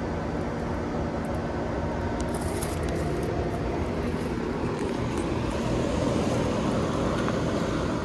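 Outdoor central air-conditioner condensing units, a Guardian and a Trane XB13, running: a steady compressor hum under the even rush of the condenser fans.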